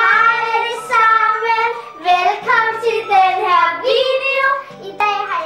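Two children singing out loudly together in long, drawn-out notes.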